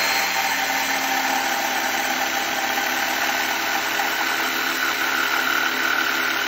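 Jigsaw running steadily and loudly as it cross-cuts a 2x4, across the grain.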